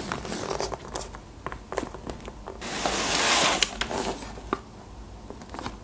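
Disposable aluminium foil trays being handled and set down on a table: scattered light knocks and taps, with a louder stretch of foil crinkling for about a second, some three seconds in.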